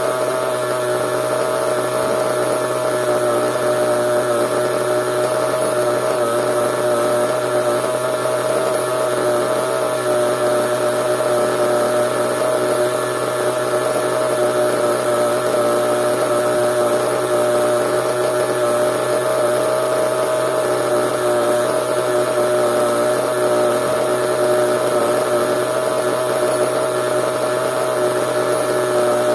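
Small nitro (glow-fuel) engine of a radio-controlled CEN monster truck running steadily at a constant, high-pitched tone, with no revving.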